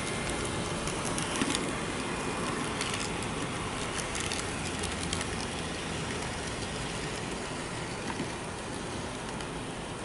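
Arnold N-scale model of a Renfe series 440 electric unit running on its track: a steady running noise with scattered small clicks from the wheels on the rails, slowly fading as it moves away.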